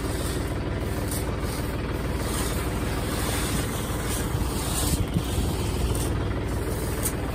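Tractor diesel engine idling steadily, with a couple of light knocks about five seconds in and near the end.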